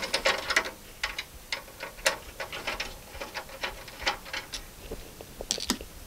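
Screw being undone from a PC case's rear expansion-slot cover: a run of small, sharp metal clicks and ticks, several a second, irregular in spacing.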